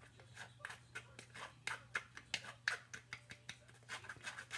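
A spoon scraping grated potato pulp against a fine wire-mesh strainer to press out the juice: quick, repeated scraping strokes, about three or four a second.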